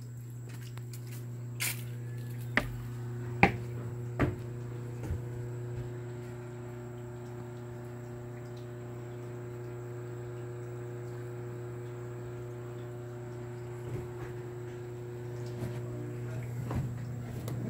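A steady low mechanical hum throughout, with a few sharp knocks in the first few seconds from footsteps on wooden steps and decking.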